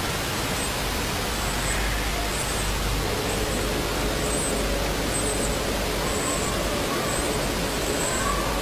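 A 40 kHz ultrasonic cavitation handpiece of a body-slimming machine running: a steady hiss with short high-pitched pulses repeating about once a second.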